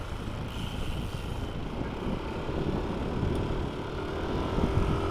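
Wind rumbling on the microphone of a moving motorcycle, with the engine running steadily underneath; a faint droning tone joins about halfway through.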